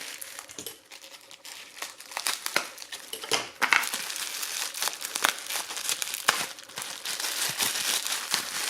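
Packaging being unwrapped by hand, crinkling and rustling in irregular bursts, loudest about three and a half seconds in.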